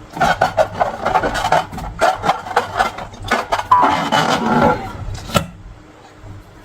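Slime and long balloons being handled: irregular squishing, rubbing and crackling with many short clicks, dying down after about five seconds.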